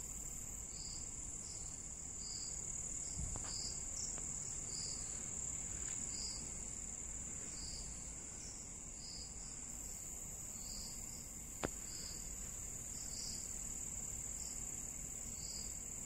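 Crickets calling at night: a steady high-pitched trill, with short chirps repeating about every two-thirds of a second. A single sharp click sounds about twelve seconds in.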